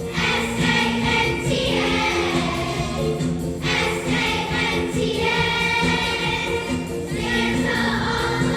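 Choir singing, with long held chords that change every second or two.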